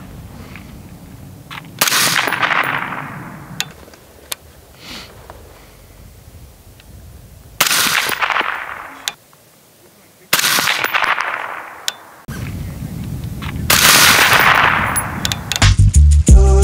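Four suppressed shots from a Mk 12 rifle firing 5.56 mm XM193 through 12th Model-style suppressors, each a sharp crack followed by an echo that trails off over a second or so. Music with a heavy beat comes in near the end.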